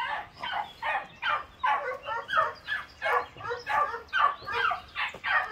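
Beagle barking over and over, about two or three barks a second.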